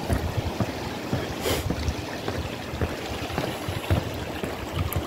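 Wind buffeting a phone microphone outdoors: a steady rushing noise with irregular low rumbles and thumps, and a brief brighter gust about a second and a half in.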